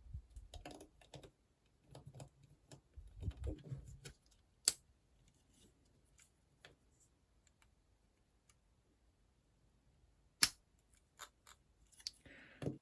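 Small plastic building blocks handled and clicked together, with scattered light clicks and rustling and two sharp, loud clicks, one about a third of the way in and one near the end.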